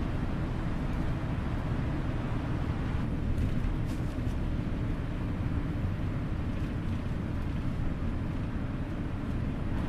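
Steady low rumble of a moving bus heard from inside: engine and road noise, with a few faint ticks about three to four seconds in.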